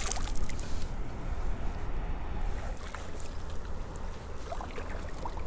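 Wind rumbling on the microphone out on the water, with a few light clicks and knocks of handling on a kayak, most of them near the start and another about three seconds in.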